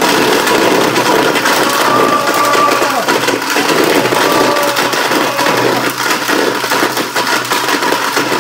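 Countertop blender switched on abruptly and running at full speed, grinding rubber bouncy balls, with the hard pieces clattering fast against the jar.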